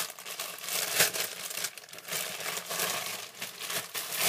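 Clear plastic packaging crinkling and crackling in the hands as it is pulled open, in irregular bursts, loudest about a second in.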